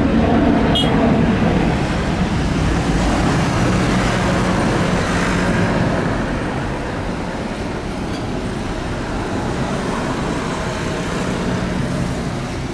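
Airbus A330's twin jet engines at takeoff power as the airliner climbs away: a steady low rumble and rush that slowly fades. A short click about a second in.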